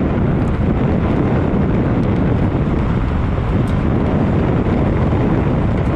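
Car driving on a gravel road: a steady rumble of tyres on loose gravel mixed with heavy wind buffeting the microphone of a camera mounted on the outside of the car.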